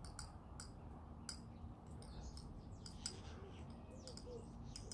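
A few light clicks and scrapes of a metal teaspoon against a small spice jar as chicken spice is spooned out, with faint bird calls in the background near the end.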